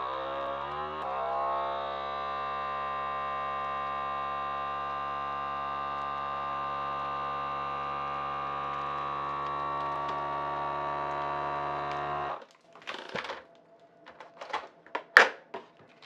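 FoodSaver vacuum sealer's pump drawing air through its handheld accessory hose from the port on a zipper bag: a steady motor hum whose pitch shifts during the first second, then holds for about twelve seconds and cuts off suddenly once the bag is vacuumed down. Afterwards come a few clicks and plastic rustles as the hose comes off the bag.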